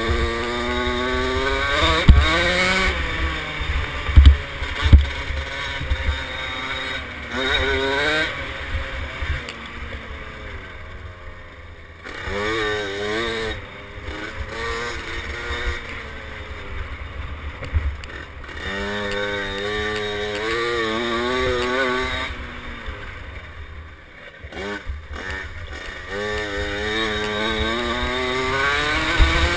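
KTM 50 SX mini dirt bike's two-stroke engine revving up and down repeatedly while riding, with a few sharp knocks in the first five seconds.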